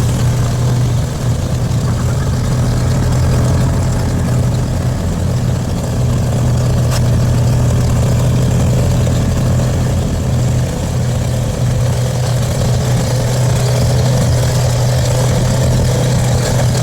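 A vehicle engine running steadily: a loud, even low hum with only small dips in level.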